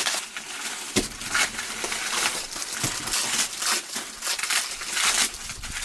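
Dry corn stalks and leaves rustling and crackling as they are handled, with a sharp crack about a second in.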